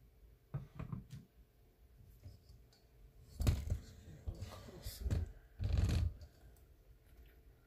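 Handling noises: rustling and scraping, a short burst about half a second in, then three louder bursts between about three and a half and six seconds in.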